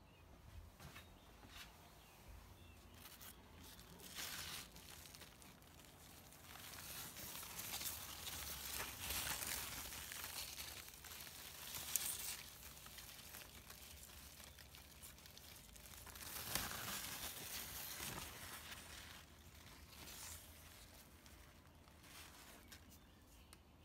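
Leaves and stems of a lemon cucumber plant rustling and crinkling as hands move through them, in several bursts with a sharp click about halfway through.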